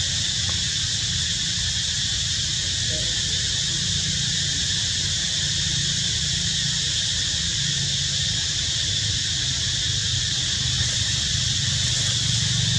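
Steady high-pitched insect drone with a low rumble beneath it, unchanging, with no distinct calls or knocks.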